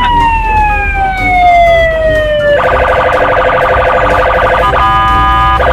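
Police car siren: one long wail that climbs sharply and then slowly falls in pitch. About two and a half seconds in it switches to a rapid pulsing pattern.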